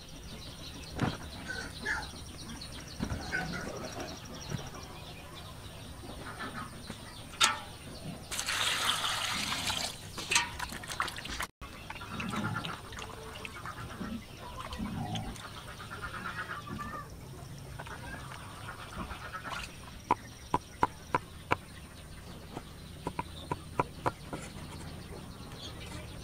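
Outdoor food-prep sounds: water splashing in a basin for a few seconds, birds and fowl calling in the background, and a quick run of sharp taps near the end.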